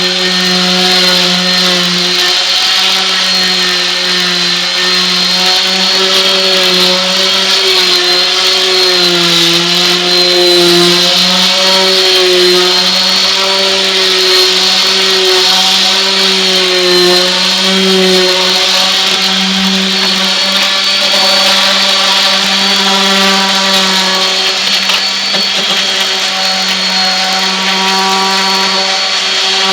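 Electric orbital sander running continuously against wooden siding: a steady motor whine with a coarse sandpaper hiss, its pitch wavering and dipping slightly now and then.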